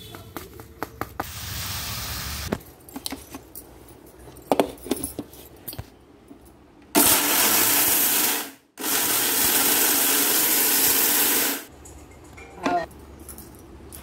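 Electric mixer grinder (mixie) grinding dry seeds and spices to powder in its steel jar. It runs for under two seconds, cuts out briefly, then runs again for about three seconds and stops. Before that, near the start, seeds hiss and rattle as they are poured into the steel jar.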